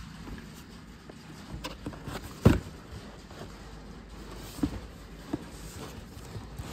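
Cardboard Adidas shoe box being handled: soft rubbing with light taps, one sharp knock about two and a half seconds in, and a few smaller knocks after it.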